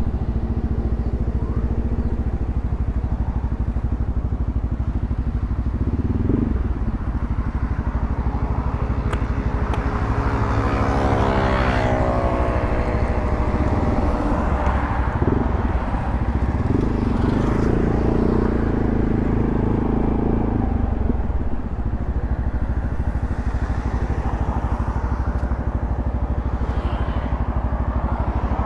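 Yamaha XMAX 300 scooter's single-cylinder engine running steadily while riding on the road, with a rising engine note about ten seconds in.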